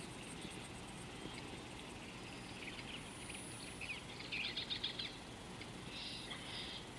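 Wild birds chirping and calling, with a quick run of chirps a little past the middle, over a faint steady high insect buzz.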